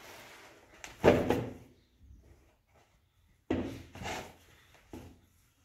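Bread dough being kneaded by hand in a large metal basin: dull thumps and scuffs of the dough pressed against the basin, the loudest about a second in, another pair around three and a half to four seconds and a single one near the end.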